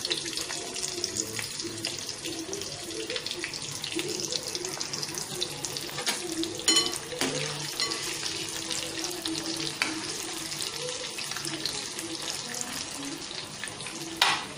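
Boiled baby potatoes deep-frying in hot oil in a small pan: a steady, dense crackling sizzle. A metal slotted spoon clinks sharply against the pan twice, once about seven seconds in and once near the end.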